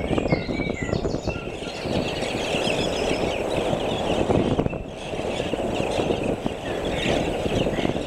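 Small birds chirping and trilling repeatedly over a steady, rough low outdoor noise.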